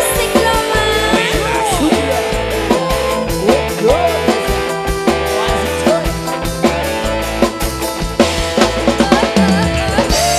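Live band music played loud through a PA sound system. A drum kit keeps a steady beat of bass drum and snare under a melody line that slides up and down, with an electric guitar in the band.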